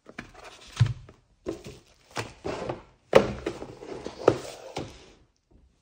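Handling noise of a plastic Tokyo Marui 1911 airsoft pistol: several knocks with scraping and rubbing between them. The sharpest knocks come about a second in, around three seconds in and just past four seconds.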